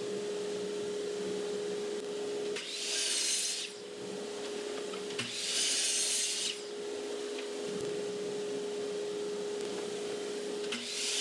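DeWalt miter saw cutting through plywood: two short cuts of about a second each, with a third starting near the end. Under them runs a steady hum.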